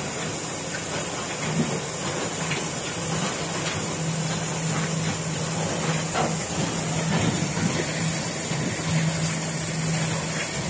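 Concrete batching plant machinery running: a steady hiss over a low hum, with scattered knocks.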